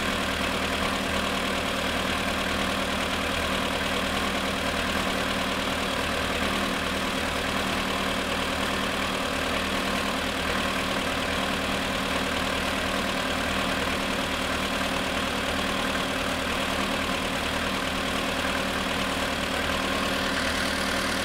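Volkswagen Polo Sedan engine idling steadily in −19 °C frost, with the knock that the owner reports from it in this cold.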